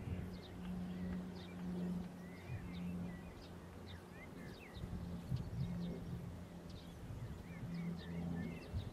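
Birds chirping in short calls on and off, over a steady low hum and faint rumble in the background.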